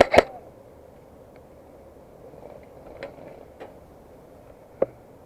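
Airsoft gunfire: two sharp snapping shots in quick succession right at the start, then a few faint clicks and one more sharp snap near the end.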